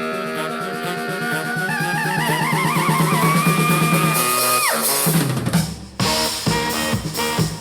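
Rock music played back through desktop speakers and recorded in the room: a held note that climbs with vibrato over sustained chords breaks off about four and a half seconds in, and after a short lull the drums and band come back in with rhythmic hits.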